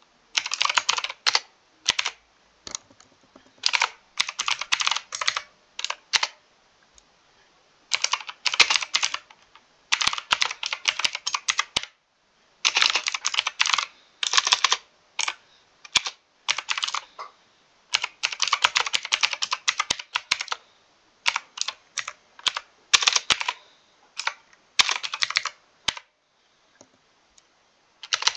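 Mechanical keyboard typing: runs of rapid, crisp keystrokes lasting a second or two, broken by short pauses.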